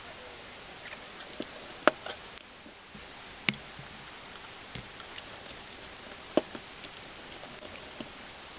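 Hollowing out a raw black radish with a small tool: irregular scraping and crunching of the firm flesh with sharp clicks of the tool, a few louder ones about two, three and a half and six seconds in, and quicker scraping near the end.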